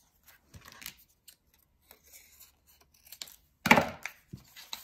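Small paper cut-outs being handled on a cutting mat: light paper rustles and ticks, then a louder sudden rustle with a knock as the pieces are moved near the end.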